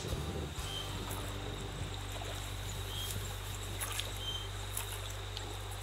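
A small animal's short high chirps, repeating about once a second, over a steady low hum.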